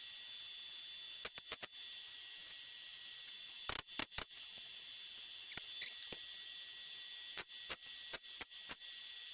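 Short, sharp crackling pops in small clusters, the loudest about four seconds in, over a steady hiss: a welder tacking steel pieces of a drift trike frame together.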